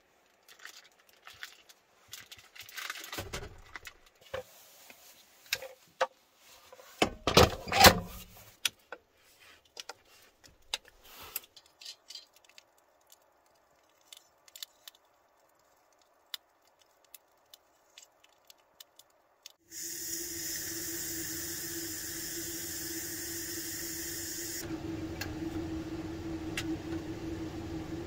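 Food packaging rustling and kitchen items knocking and clattering as a multi-cooker is loaded. About 20 seconds in, a steady hiss with a low hum starts suddenly from the Ninja Foodi multi-cooker; the hiss drops away about five seconds later and the hum carries on.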